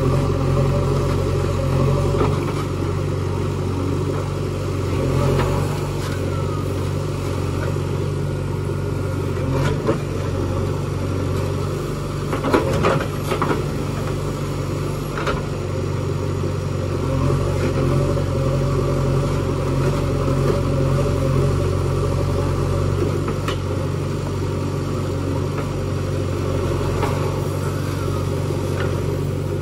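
JCB 3DX backhoe loader's four-cylinder diesel engine running steadily under load while the backhoe digs soil. Scattered knocks of the bucket against soil and stones, a cluster about halfway through.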